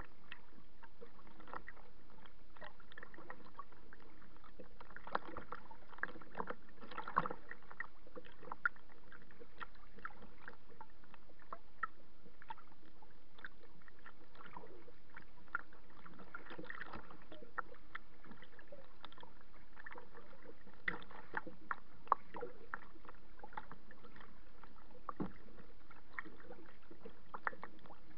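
Small waves lapping and slapping against a kayak's hull: an irregular patter of short little splashes over a steady wash of water noise.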